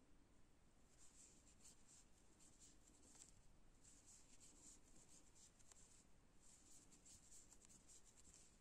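Near silence, with faint, soft scratchy rustling that comes and goes in short patches as yarn is worked over a crochet hook.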